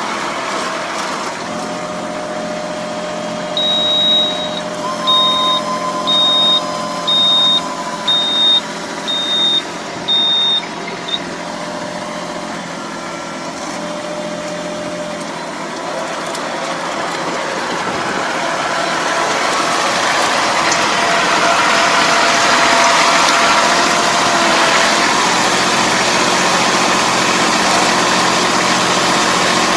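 Tractor engine running steadily. A few seconds in, an electronic warning beeper sounds seven times, about once a second. In the second half the engine grows louder.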